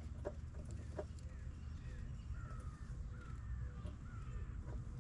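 Faint bird calls, a string of short falling notes about every half second, over a low background rumble, with a few soft clicks in the first second.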